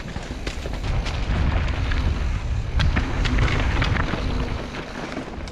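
Specialized Enduro Expert mountain bike riding fast down a rocky dirt trail, heard from a helmet-mounted GoPro: wind rumbling on the microphone, tyres rolling over dirt and rocks, and scattered clicks and knocks from the bike.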